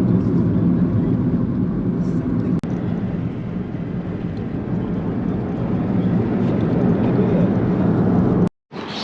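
Steady low rumble of road and engine noise inside a moving car at highway speed. It cuts off abruptly near the end.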